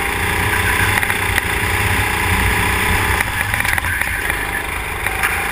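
Go-kart engine running hard, recorded from a camera mounted on the kart; its note fades for about a second a little over three seconds in, then picks up again.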